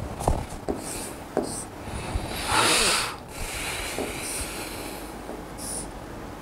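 Pen on an interactive display board: short taps and scratchy strokes as lines and a letter are drawn. About halfway through comes a louder rush of noise lasting about half a second.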